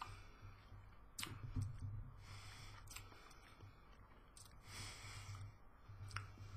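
Faint mouth sounds of someone tasting a sip of whisky: a handful of lip smacks and tongue clicks, with two soft breaths out about two and five seconds in.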